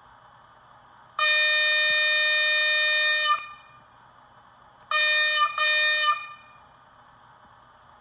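Märklin 36632 Class 185 HO model locomotive's sound decoder playing an electric-locomotive horn through its small onboard speaker. One long blast starts about a second in, then two short blasts follow about four seconds later, over a faint steady running hum.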